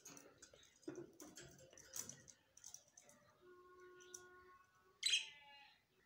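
Budgerigars chattering softly, with scattered clicks and short chirps, then one loud chirp about five seconds in.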